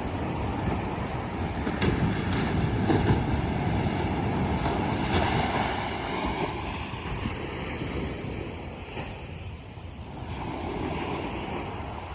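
Ocean surf: waves breaking and rolling up a beach as a steady wash, swelling about two seconds in and easing off for a moment near ten seconds before building again.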